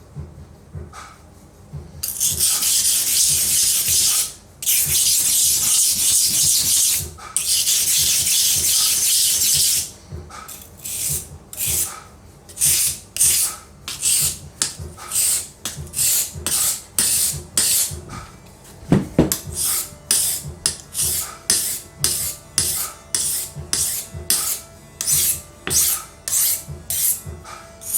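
A paring knife's blade scraped against an abrasive in sharpening strokes. Three long, even strokes come first, then a quick run of short back-and-forth strokes, with a single sharp knock partway through.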